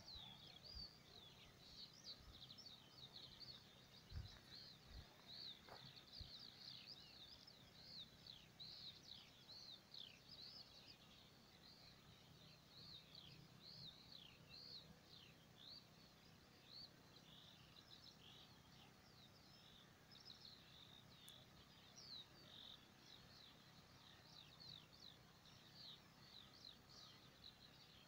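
Faint, continuous chirping of many small birds, a dense stream of short high falling calls, over a low steady hum, with a few soft low thumps in the first six seconds.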